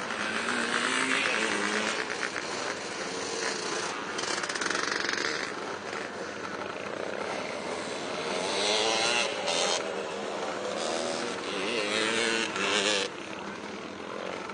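Several vintage motocross motorcycles running on a dirt track, their engines revving up and falling back again and again, loudest about two-thirds of the way through and dropping off suddenly near the end.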